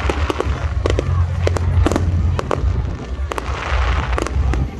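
Fireworks going off: a rapid run of sharp bangs and crackles, with a hissing burst about three and a half seconds in.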